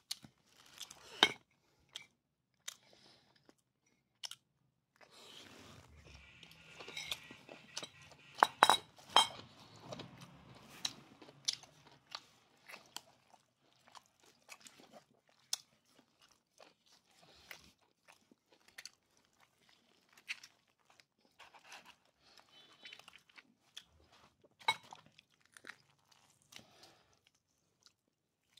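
Crunching and crackling as a whole grilled duck is cut with a knife and torn apart by hand: many scattered sharp crackles of breaking skin and meat, busiest and loudest about a third of the way in.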